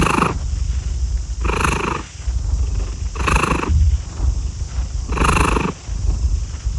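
A domestic cat purring: a steady low rumble with a louder, rougher swell about every two seconds, four times.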